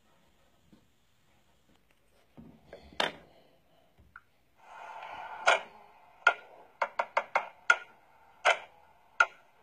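Upright piano being played: after some soft handling noises and a sharp knock about three seconds in, a held chord sounds, followed by single notes struck one after another, coming faster near the end.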